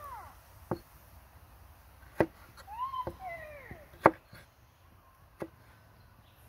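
Kitchen knife slicing tomatoes on a wooden cutting board: four sharp knocks as the blade hits the board, a second or two apart, the third the loudest. A cat meows once between the second and third knocks.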